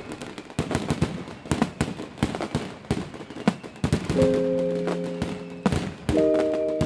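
Fireworks crackling and popping in quick, irregular bursts, then the show's music comes back in with held chords about four seconds in.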